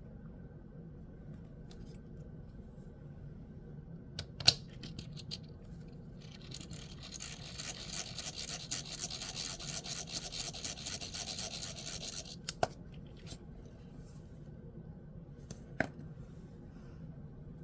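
Small magnetic fidget parts being handled: a few sharp clicks, the loudest about four and a half seconds in, and in the middle about six seconds of steady scratchy rubbing that stops abruptly.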